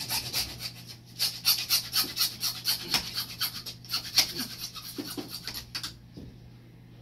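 Hacksaw cutting 3/4-inch PVC pipe: quick back-and-forth rasping strokes, about four a second, that stop about six seconds in.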